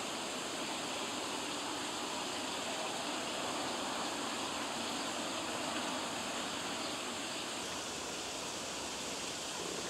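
Steady rushing background noise, even and unbroken, with no distinct calls, steps or knocks standing out.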